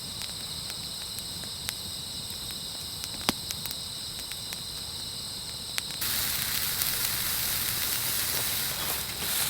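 Wood fire crackling with scattered sharp pops, over a steady high chirring of insects. A louder hiss comes in about six seconds in.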